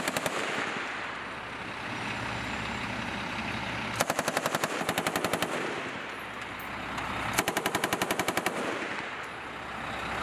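M2A1 .50-calibre heavy machine gun fired in short bursts from a truck's turret mount. The end of one burst comes at the start, then two bursts of a second or so each, about four and seven seconds in, with a steady low rumble between them.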